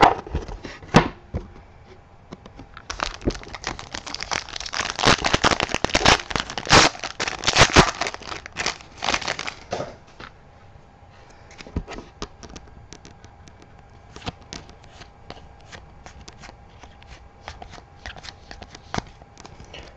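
Trading cards being handled, flipped and slid over one another in a string of light clicks and rustles, with a louder, denser stretch of crinkling from about three to ten seconds in.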